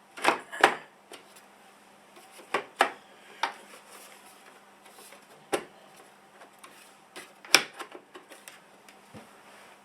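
Graphics card knocking and clicking against the metal case and slot of a Mac Pro as it is slid in, a dozen or so sharp knocks at uneven intervals. The loudest come in a pair right at the start and once more near the end.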